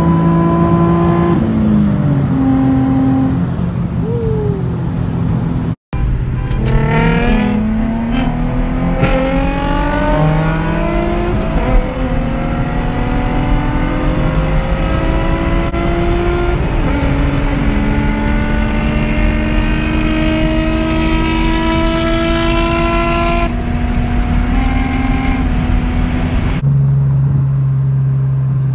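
Nissan 350Z's 3.5-litre V6 pulling hard from a roll, its pitch climbing and falling back at each of several upshifts, heard from inside the car, with a momentary dropout about six seconds in. Near the end it gives way to a steady, lower engine drone.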